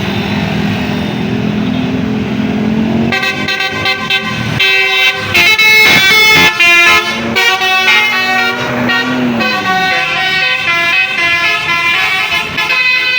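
A bus's multi-tone telolet horn (a basuri horn) playing a quick melody of changing tones, which starts about three seconds in. Before it, a steady vehicle engine and road noise drone.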